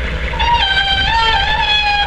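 The 6.5-litre turbo-diesel V8 idles with a low, rhythmic rumble, and about half a second in a loud, high-pitched whine from the rollback bed's hydraulics starts and holds, wavering and stepping in pitch as the bed controls are worked.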